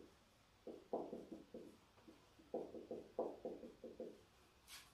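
Marker pen writing on a whiteboard: a run of short, faint strokes as letters are written, in two bursts with a pause between.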